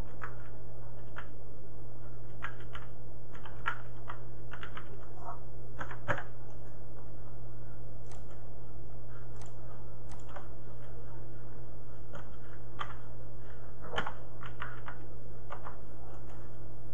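Computer keyboard keystrokes in short irregular runs, with a mouse click or two, over a steady low electrical hum.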